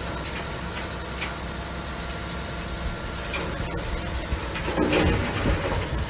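Heavy eight-wheel tipper truck's diesel engine running steadily while its raised body dumps a load of rock, with the rock spilling out. A louder rush about five seconds in.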